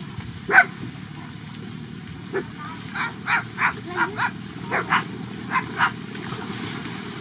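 An animal giving about a dozen short, sharp calls, the first the loudest, then a quick run of them in the middle, over a steady low rumble.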